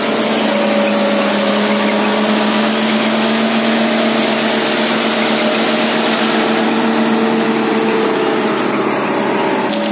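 Ajax Fiori Argo 2000 self-loading concrete mixer's diesel engine running steadily as the machine drives slowly, a constant drone with a steady hum in it. The sound changes abruptly near the end.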